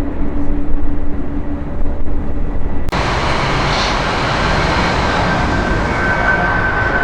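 Jet airliner engines at takeoff thrust: a low rumble that changes abruptly about three seconds in to a steadier, brighter, hissing jet noise, with a faint whine rising out of it near the end.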